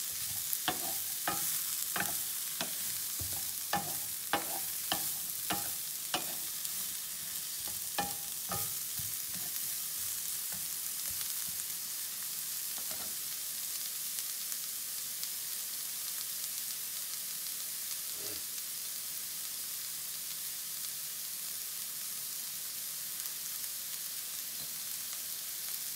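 Sliced carrots and broccoli sizzling in oil in a frying pan, with a wooden spoon knocking and scraping against the pan as they are stirred for about the first nine seconds. After that only a steady sizzle.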